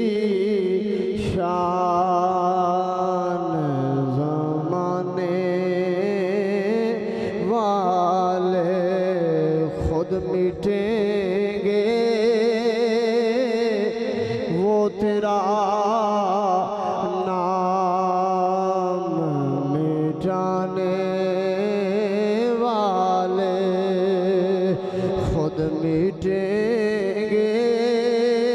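A man singing a naat, a devotional Urdu poem in praise of the Prophet, unaccompanied. He draws out each syllable in long, wavering held notes, and the same falling phrase comes twice.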